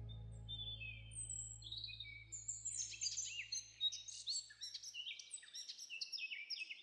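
Many songbirds chirping and calling in quick, overlapping short notes, growing busier after about two and a half seconds. A low held music tone fades out under them in the first few seconds.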